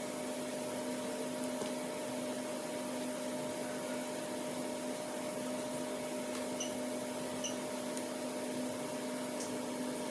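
Steady machine-like hum and hiss, even in level throughout, with two faint short high chirps about two-thirds of the way through.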